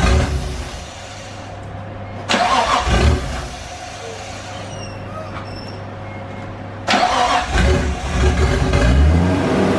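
Nissan RB25DET turbocharged straight-six starting for the first time after the exhaust manifold gaskets and turbo were refitted, then running, with the revs rising and falling over the last couple of seconds. The sound jumps abruptly in level twice.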